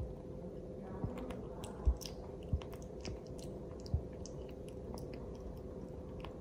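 Baby monkey biting and chewing a soft peeled banana: small wet mouth clicks and smacks. A few soft low thumps, the loudest about two seconds in.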